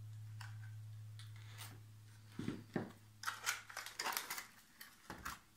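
A knife and a jam jar being handled: a quick run of small clicks and scrapes starting about two and a half seconds in, over a faint low hum.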